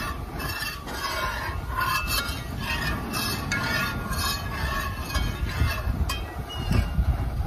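A metal spoon stirring thick tomato sauce piquante in a metal pot, clinking against the pot about once or twice a second over a steady low rumble.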